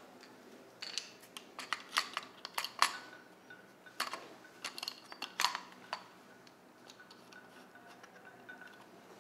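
Sharp metallic clicks and clinks as the metal lamp housing of a slit lamp is handled and fitted back into place, a flurry of taps between about one and six seconds in.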